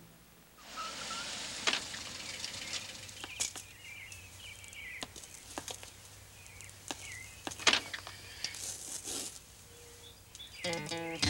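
Outdoor ambience with birds chirping and the scattered sharp clicks of a woman's high-heeled shoes on pavement, then music starts near the end.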